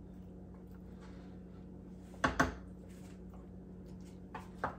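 Two sharp clinks of a utensil against a cooking pot a little past halfway, then two lighter ones near the end, over a steady low hum.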